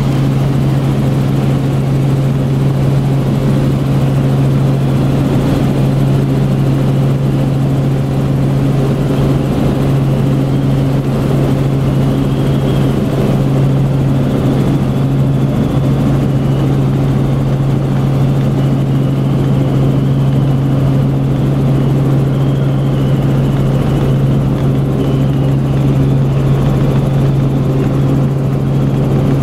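Helicopter in cruising flight heard from inside the cabin: a loud, steady rotor and engine drone with a strong low hum that does not change.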